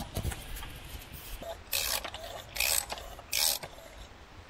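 Ratchet wrench on a 32 mm socket and extension clicking in three short runs, a little under a second apart, as the refitted oil filter housing cap is tightened down.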